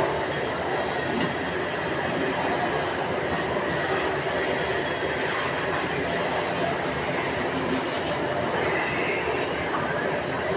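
Steady, even machine noise at a constant level, with no distinct knocks or rhythm.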